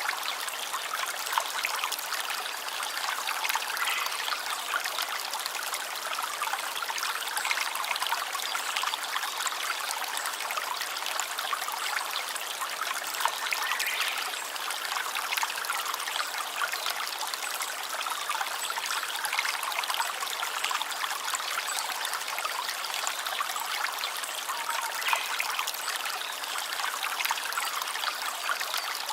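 Water flowing and trickling steadily in a stream, an even splashing that does not change.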